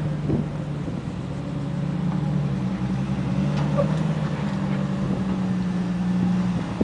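Off-road Jeep's engine running steadily at low revs as it crawls over slickrock. The pitch steps up slightly about two seconds in.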